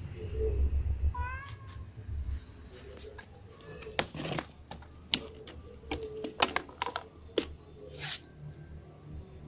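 A cat gives a short rising meow about a second in. It is followed by a run of sharp clicks and knocks, the loudest about six seconds in.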